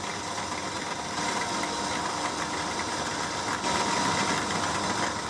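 Bench drill press running with a steady whine as its twist bit drills a hole through a plastic photo tube lid.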